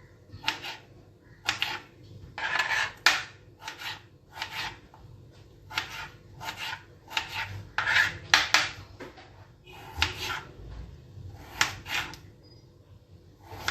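Kitchen knife cutting potato into small pieces on a cutting board, in irregular short slicing strokes about one or two a second.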